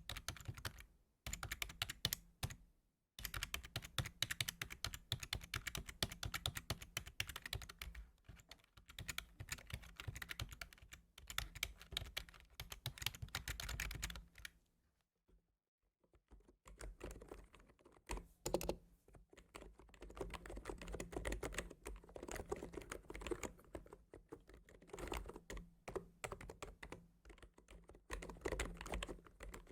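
Fast, continuous typing on a computer keyboard, with quick key clicks and short pauses. About halfway through the typing stops for a second or two, then resumes with a lower, fuller click sound.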